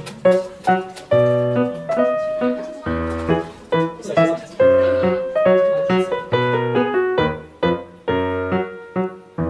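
Background piano music: a melody of struck notes, each fading after it sounds, over a low bass line.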